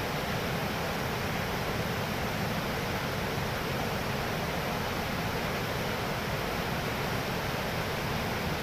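Flooded river in spate rushing over boulders: a steady, unbroken noise of turbulent white water.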